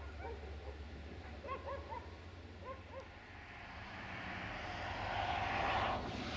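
Short distant animal calls, a few at a time, over a low steady rumble. In the second half a rushing noise of a road vehicle passing swells up and cuts off abruptly near the end.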